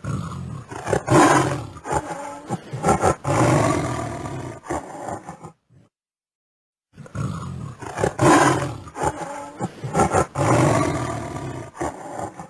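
A recorded wild animal roaring: the same roar clip, several rough, loud pulses over about five seconds, plays twice with a short silent gap between.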